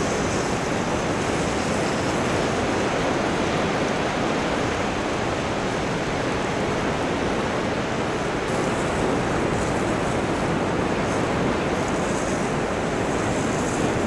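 Steady rush of wind and sea surf on the shore, with wind buffeting the microphone.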